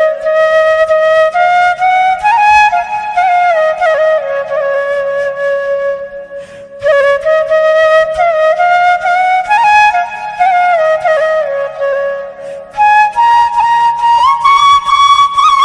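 Background music: a solo flute playing a slow, gliding melody in three phrases, the last phrase higher in pitch.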